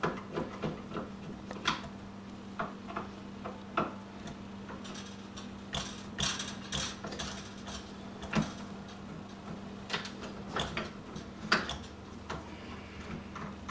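Phillips screwdriver backing the screws out of an old Kwikset deadbolt: irregular small metal clicks, ticks and scrapes of the driver and lock hardware. A steady low hum runs underneath.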